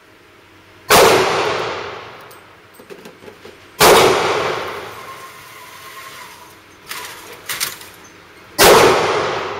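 Three single pistol shots from a Ruger Mark II .22 semi-automatic, about three to five seconds apart, each ringing out in a long echoing decay off the range walls. Fainter clicks and knocks come between the shots.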